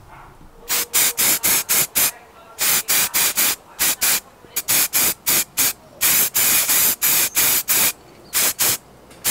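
Aerosol spray-paint can spraying a steel clamp in a rapid series of short hissing bursts, with a few longer bursts near the end.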